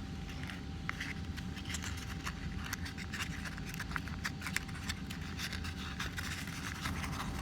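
Origami paper rustling and crackling with many small, irregular crinkles as a layer of the accordion-folded paper is slowly pulled out.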